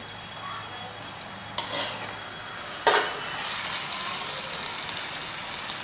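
Whole catla fish frying in oil and masala, sizzling steadily. A metal slotted spoon scrapes against the pan twice, about a second and a half in and again around three seconds in, as the soft fish is turned, and the sizzling gets louder after the second.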